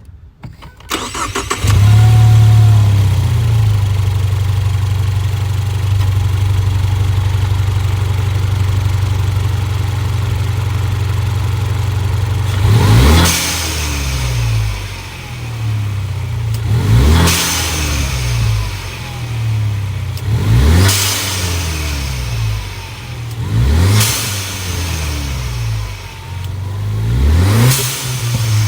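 2015 Ford Mustang EcoBoost's turbocharged 2.3-litre four-cylinder, fitted with an aftermarket cold air intake and 65 mm throttle body, cranks and starts about a second and a half in, flares up briefly, then settles into a steady idle. From about halfway on it is revved five times, each rev rising quickly and dropping back to idle.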